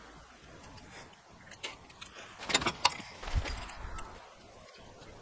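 Light metal clicks and taps of a steel square and marker being handled against a flat steel bar and twisted rebar, with a short low thud about midway.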